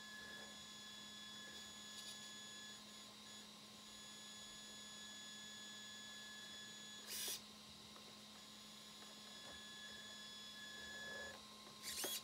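Radio-controlled car on-road chassis driven in short, gentle throttle blips on carpet. A faint steady electronic whine of several high tones hangs under it, with two brief rushing sounds about 7 and 12 seconds in.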